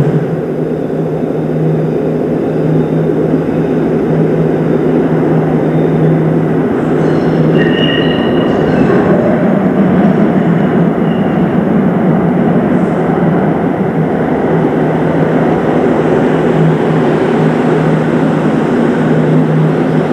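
Light rail car arriving in an underground station: a steady, loud rumble of wheels and running gear echoing in the tunnel, with brief high wheel squeals about eight seconds in.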